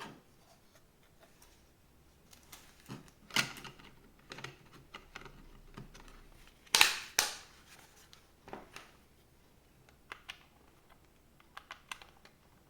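Sharp clicks and knocks of hard plastic as a 2.5-inch hard drive enclosure is handled and fitted together. They come irregularly, the loudest a quick double snap about seven seconds in.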